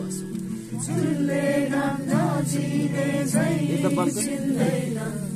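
A song: a voice singing a melody over steady held accompaniment chords, the voice coming in about a second in.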